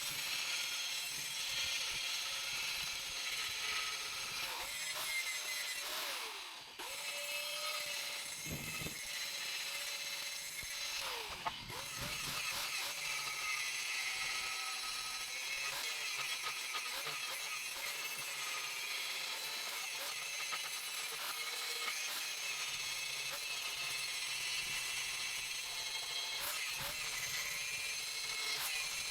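Angle grinder running against steel, taking rust off a welded bracket, with a steady whine whose pitch dips briefly twice, about six and eleven seconds in.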